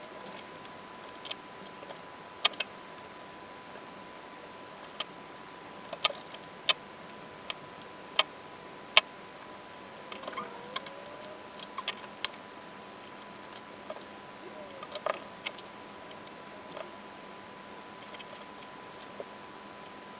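Scattered sharp clicks and light clatter of wires, small parts and hand tools being handled during wiring work, some louder than others, over a steady faint high-pitched tone.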